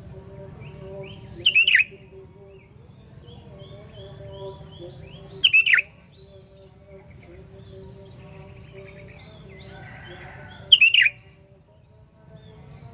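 Sooty-headed bulbul (kutilang) giving three loud, shrill calls about four seconds apart, each under half a second, over fainter chirping.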